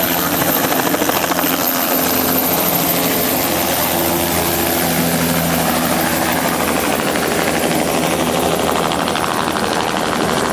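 Helicopter turbine and rotor running close by, loud and steady.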